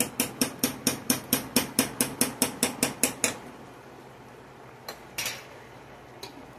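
A metal spoon tapped rapidly on the rim of a cooking pot, about sixteen quick clinks at roughly five a second for three seconds, knocking bacon grease off into the beans. Then a couple of lighter clinks as the spoon is laid down on the counter.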